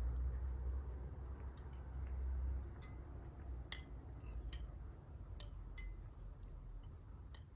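Scattered light clicks and clinks of cutlery against dishes, over a low rumble that eases off after about two and a half seconds.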